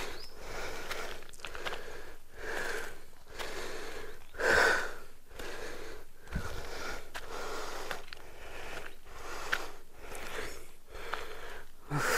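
A person breathing hard close to the microphone, in quick, even breaths about one and a half a second, with one louder breath about four and a half seconds in.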